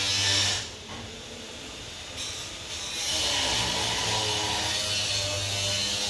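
Transmission fluid pouring from a one-litre bottle into a plastic tub, a continuous splashing pour. It dips for a second or two, then grows louder and fuller from about three seconds in as the stream thickens. A steady low hum runs underneath.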